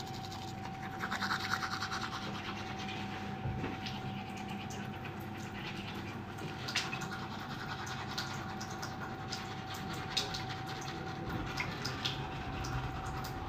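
Teeth being brushed with a toothbrush: rapid back-and-forth scrubbing of bristles, strongest in the first couple of seconds, with small clicks, over a steady faint hum.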